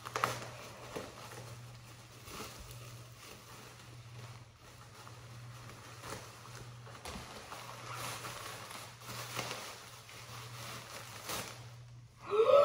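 Bubble wrap and a plastic bag crinkling and rustling in the hands as they are pulled apart, in scattered irregular crackles, over a steady low hum.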